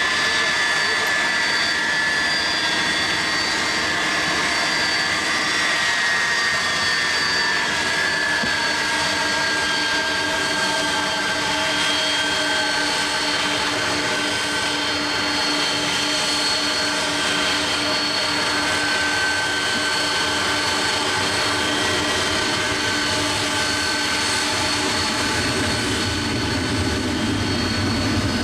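Boeing 767-300ER's jet engines running at low power, a steady turbine whine whose highest tone drifts slowly down in pitch, over a constant engine rush.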